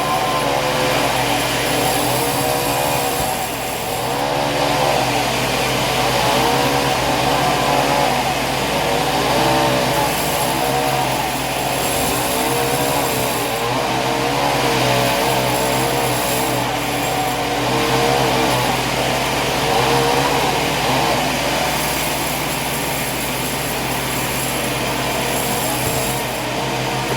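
Sawmill machinery running continuously, a loud steady mechanical noise with a motor note that wavers up and down.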